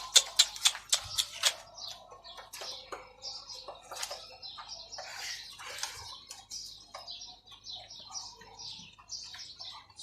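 Domestic pigeons and squabs in their loft: a quick run of sharp clicks in the first second and a half, then scattered short, high chirps.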